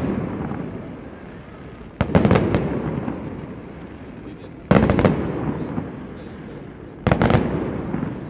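Fireworks shells bursting overhead: three sudden bangs about two and a half seconds apart, each followed by crackling that fades over a second or two. A burst from just before is still dying away at the start.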